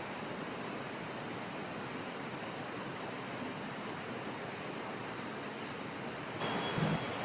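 Steady, even hiss of an indoor diving-pool hall, with water sounds as a diver swims to the wall and climbs out of the pool. Near the end comes a brief louder sound, about half a second long, with a faint high tone in it.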